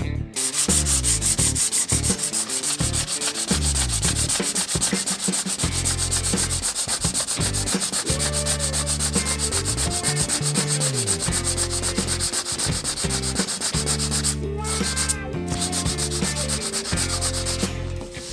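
Sanding the wood of a cedar-strip canoe, a fast, steady scratching with a low hum beneath it. It breaks off briefly twice about three-quarters of the way through.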